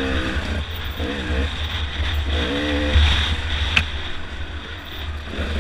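Off-road dirt bike engine revving up and down in short bursts as the throttle is worked over a rough trail, over a steady wind rumble on the helmet-camera microphone. A sharp knock about four seconds in.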